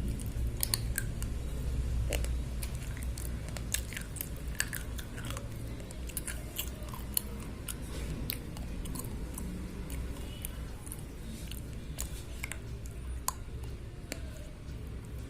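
Slate pencils being bitten and chewed close to the microphone: a run of sharp, irregular crunches and small crackles over a low steady hum.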